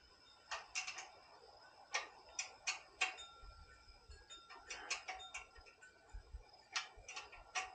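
Faint, scattered metallic clicks and taps, about a dozen at irregular spacing with a few in quick clusters, from hand work on a small engine's carburetor and governor linkage.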